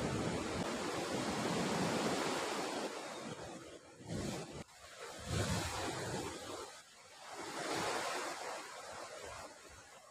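Ocean surf breaking and washing ashore, in swells that rise and fall, with wind gusting on the microphone; it fades near the end.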